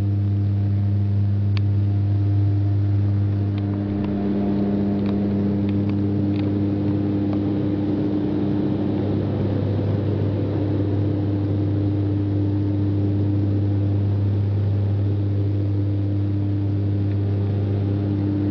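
Cabin drone of a Cessna Conquest's twin turboprop engines and propellers in the climb after takeoff: a steady low hum with overtones. From about four seconds in the hum turns rougher for several seconds, then steadies again.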